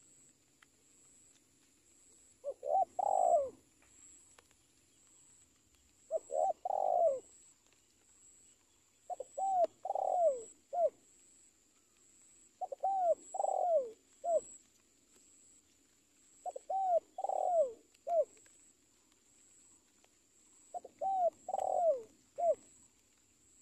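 Spotted dove cooing: six phrases about every three to four seconds, each a run of rising-and-falling coos lasting about a second, the later phrases ending with a short extra note.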